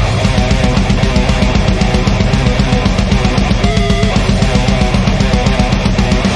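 A band's heavy rock song: electric guitar over a fast, steady drum-kit beat.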